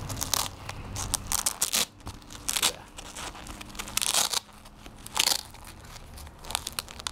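A leather focus mitt handled close to the microphone: fingers rubbing and gripping the leather and mesh in a series of short rustling bursts.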